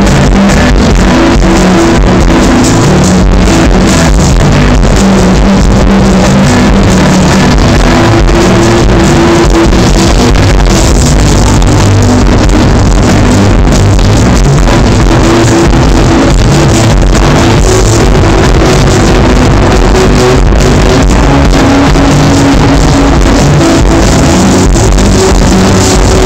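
Rock band playing live, heard from within the crowd through an overloaded phone microphone: loud, steady and distorted, with sustained low notes shifting every second or two.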